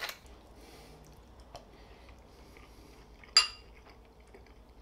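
A last turn of a salt grinder at the start, then one sharp clink of a metal spoon against a ceramic bowl about three and a half seconds in.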